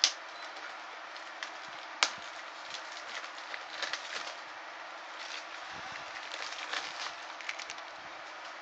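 Plastic DVD case being handled and turned over: a sharp click at the start and another about two seconds in, then light crackling and rustling, over a steady background hum.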